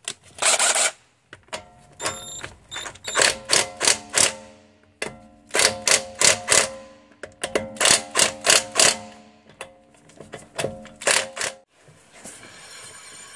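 Cordless impact wrench running up, then hammering in short rapid bursts as it tightens the rear wheel nuts, the hits ringing metallically through the alloy wheel. Near the end the hammering stops and a steady whirr sets in as the wheel is spun by hand.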